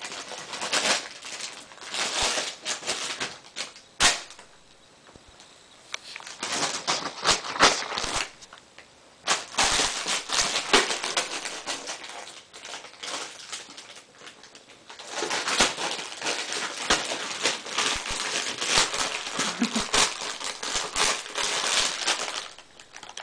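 A soft plastic baby-wipes packet being crinkled and crumpled by a baby's hands: dense crackling in bursts a few seconds long, with short quieter pauses between them.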